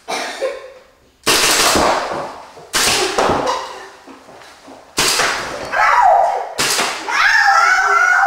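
Paintball marker firing reballs: about five single loud cracks a second or so apart, each ringing off in a small room, with laughter near the end.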